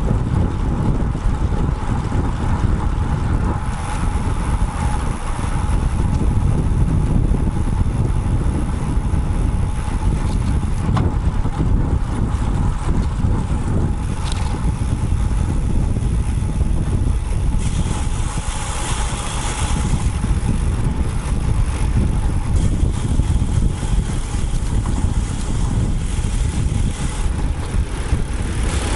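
Wind buffeting the microphone of a bike-mounted action camera on a moving road bike: a loud, steady low rumble with a constant hum. Passing road traffic adds a swell of hiss about two-thirds of the way through.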